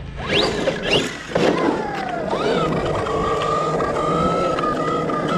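Brushless motor of a 1/8-scale RC monster truck whining. It revs up in two quick rising sweeps, then holds a steady whine at a constant speed.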